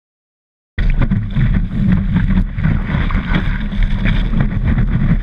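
Wind buffeting the microphone of a body-mounted camera and water spraying off a wakeboard riding over the water. It cuts in suddenly about a second in, loud and rumbling with constant crackle.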